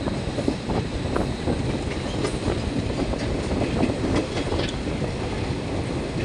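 Passenger train running along the track, heard from the window of a moving coach: a steady rumble of wheels on rails with scattered irregular clicks over the rail joints.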